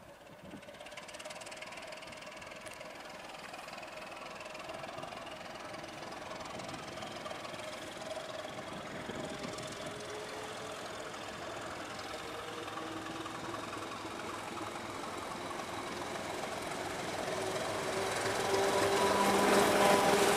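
Czech class 749 'Bardotka' diesel locomotive with its six-cylinder ČKD engine, hauling a passenger train, approaching and passing close by. The engine note grows steadily louder and is loudest as the locomotive draws level near the end.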